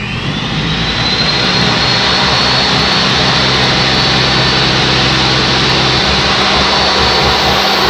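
Power saw with an old blade cutting asphalt shingles. Its motor whine rises as it spins up over the first couple of seconds, then holds steady under a loud, even cutting noise.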